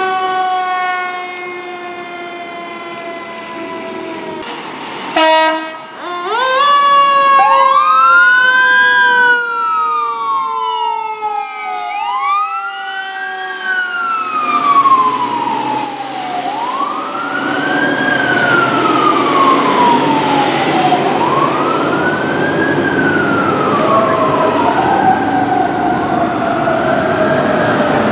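Fire truck sirens: a siren slowly winding down in pitch, a short loud blast about five seconds in, then an electronic wail siren rising and falling about every four seconds. The truck's engine grows louder in the second half.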